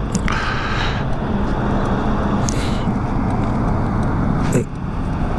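Tyre noise from a 2012 Zero DS electric motorcycle rolling on pavement, a steady low rumble. A sharp click just after four and a half seconds.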